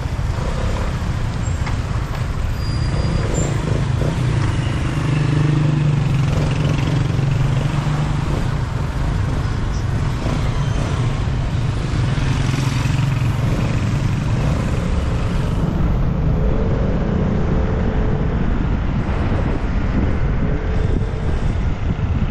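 Vespa scooter on the move: a steady engine drone under heavy road and wind rumble, with surrounding traffic. The engine tone is strongest between about four and nine seconds in.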